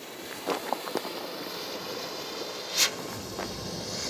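Lit fuse of a firework rocket burning just before launch: a faint steady hiss with a few small clicks and crackles in the first second, and one short, sharp spit of sparks about two-thirds of the way through.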